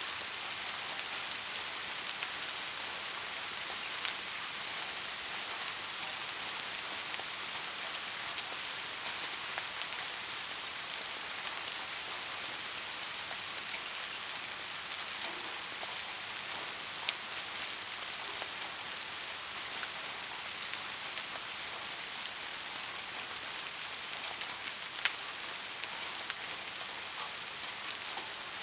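Steady soft rain falling, a constant hiss with scattered sharper drop ticks, a few louder ones standing out.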